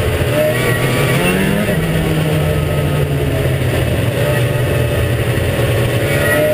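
Ski-Doo MXZ 380 snowmobile's two-stroke engine running while the sled is ridden, revving up briefly about a second in, then holding a steady pitch.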